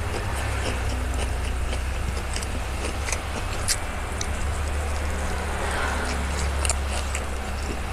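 Chewing and mouth sounds from eating, with scattered small clicks and crunches, over a steady low rumble.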